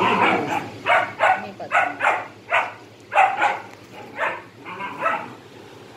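A dog barking over and over, about two barks a second, stopping about a second before the end.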